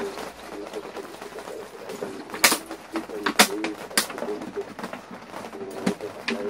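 A pigeon cooing in repeated wavering phrases, with a few sharp knocks in the middle.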